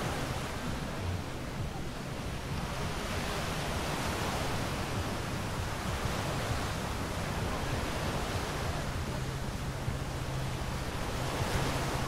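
Small ocean waves breaking at the shoreline and washing up the sand, a steady rushing hiss that swells and eases over several seconds.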